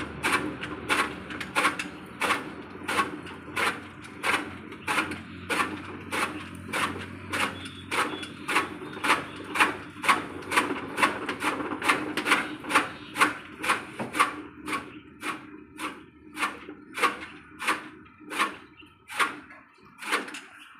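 Hand-cranked chaff cutter (toka, kadba kutti) chopping green fodder: the flywheel's blades slice through the fed stalks in a steady rhythm of about three crisp chops a second, over the rattle of the turning machine.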